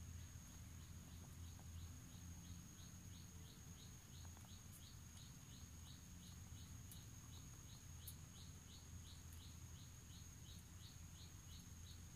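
Faint outdoor background: a short chirp repeated evenly about two to three times a second over a steady high-pitched whine.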